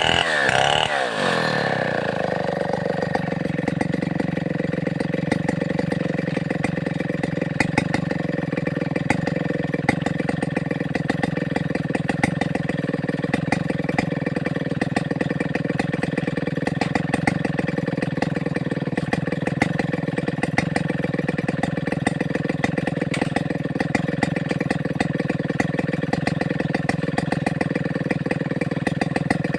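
Stihl 070 two-stroke chainsaw engine falling from high revs to idle in the first second or two, then idling steadily.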